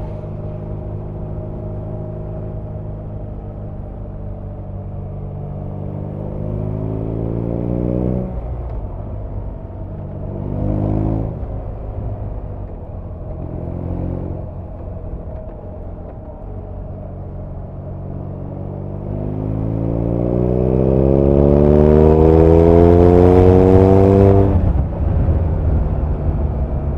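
BMW R nineT's air/oil-cooled boxer twin heard from the saddle while riding: steady cruising at first, then rising in pitch under acceleration, with two short throttle pulls in the middle. About twenty seconds in it makes its loudest, longest pull, climbing steadily in pitch before cutting off sharply as the throttle is closed or the next gear is taken.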